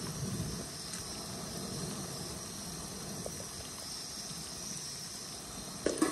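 Hot oil sizzling in a pot around sliced onions and added spices, a steady hiss. Near the end a wooden spatula knocks against the granite-coated pot as stirring begins.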